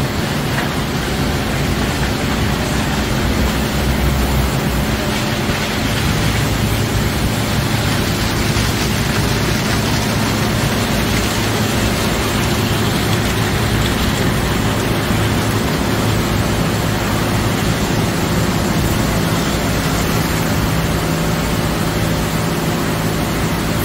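Automatic car wash tunnel running: a steady rush of water spray and spinning wash equipment over a low motor hum, which grows stronger after a few seconds.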